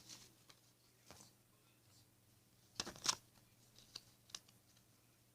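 Soft rustling and brushing of paper against cardboard pieces, a few short scrapes, the loudest pair about three seconds in.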